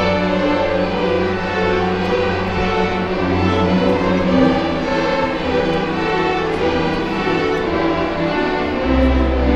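Student orchestra playing, bowed strings such as violins and cellos holding sustained notes. Deep bass notes come in near the end.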